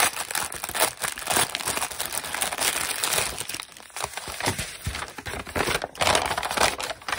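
Paper crinkling and rustling by hand as a rolled-up printed instruction sheet is unrolled and unfolded. There is a quieter moment around the middle, and the loudest rustling comes near the end.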